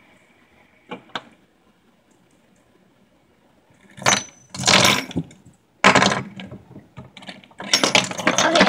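Metal fidget spinners clicking, then clattering against one another and onto a wooden tabletop in three loud bursts as a stack of spinners comes down and is gathered up.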